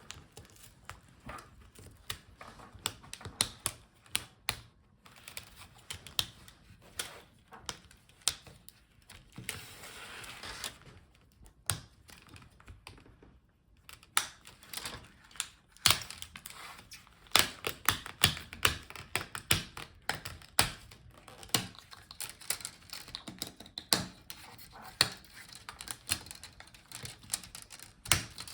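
Plastic snap clips of a laptop screen bezel clicking and popping as the bezel is pried off the display lid: many irregular sharp clicks, with a brief scraping of plastic about ten seconds in.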